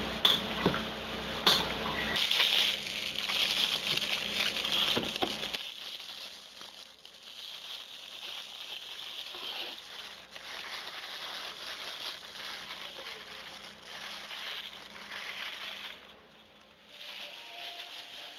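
Thin plastic bag crinkling and rustling as hands handle it. There are a few sharp knocks in the first five seconds.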